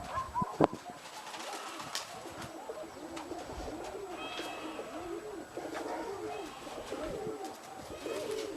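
Domestic pigeons cooing, with repeated rising-and-falling coos overlapping one another. A single sharp click stands out about half a second in.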